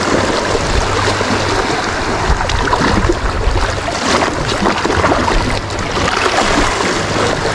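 Small sea waves washing and splashing against shoreline rocks, a steady rush of water with scattered splashes.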